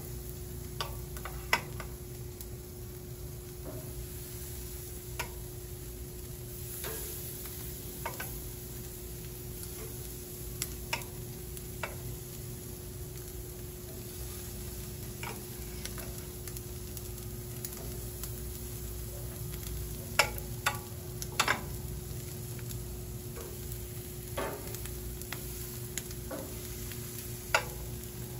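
Raw chicken drumsticks sizzling on a hot gas grill grate, with sharp clicks of metal tongs against the grate and the glass dish every few seconds as each piece is set down. The loudest clicks come about two-thirds of the way through and again near the end.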